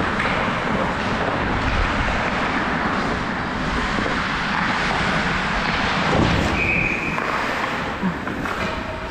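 Ice skate blades scraping and carving on the rink ice as the wearer skates, under a steady rush of air moving past the body-worn camera's microphone. A brief high tone sounds about two-thirds of the way through.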